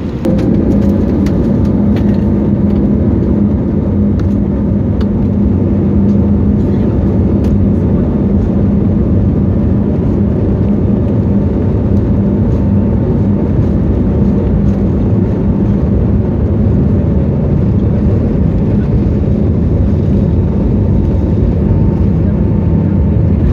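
Steady engine and cabin noise of a jet airliner, a loud low hum with a faint steady whine above it. It steps up a little just after the start, with light rattles scattered through the first several seconds.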